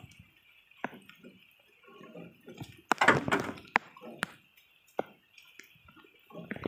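Scattered knocks and thuds of cut logs being handled and stacked on a truck's metal log rack, with a louder cluster of knocks about three seconds in. A steady high hiss sounds in the background.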